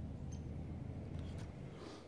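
Low steady rumble of outdoor background noise, with a few faint ticks and a short rustle near the end as the tree-stand camera on its arm is handled and starts to swing.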